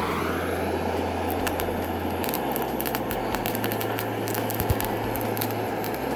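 Seafood sizzling and crackling as it cooks, with many quick sharp pops over a steady hiss and a steady low hum underneath.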